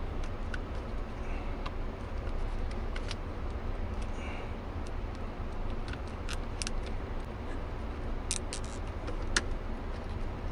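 Light plastic clicks and rattles from a zip tie and shift-lever parts being handled, with a quick run of sharp clicks about eight seconds in and a single louder click near the end, over a steady low rumble.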